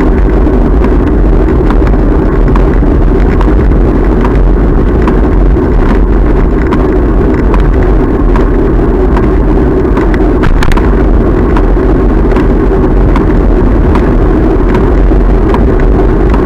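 Steady wind rush and road rumble on the microphone of a camera riding on a moving bicycle, with light ticks throughout and one sharp click about ten and a half seconds in.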